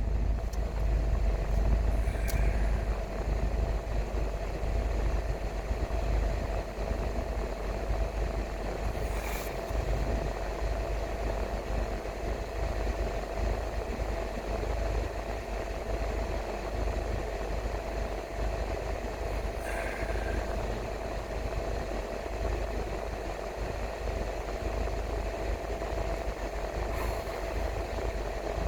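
Car driving on a road: a steady low rumble of engine and tyres with a faint steady whine, broken by four short clicks.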